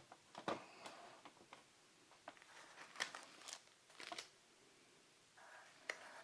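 Faint crinkling and clicking of plastic-bagged comic books being handled, in scattered short crackles.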